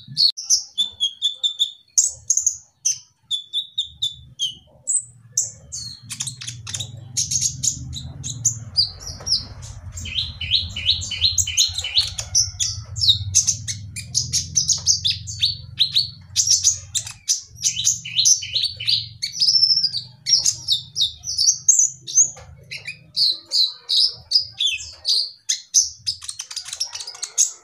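Male kolibri ninja (konin) sunbird singing in full voice (gacor): long, fast runs of high, thin twittering notes with hardly a break. A low hum sits underneath from about four seconds in until a few seconds before the end.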